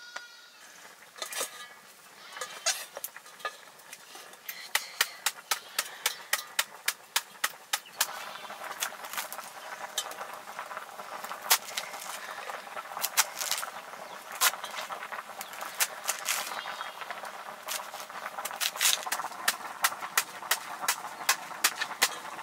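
Kitchen utensil work while cooking: a run of sharp clicks and knocks, roughly two a second, with a steady hiss joining about eight seconds in.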